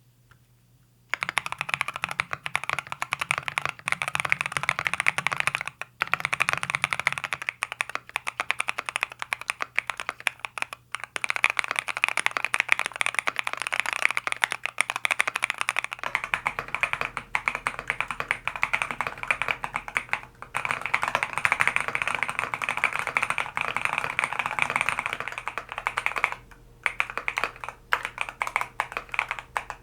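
Typing on a Thera75 V2 mechanical keyboard in its gasket-mount configuration, fitted with Lotus switches: a dense, quick stream of key clacks that starts about a second in, with a few short pauses.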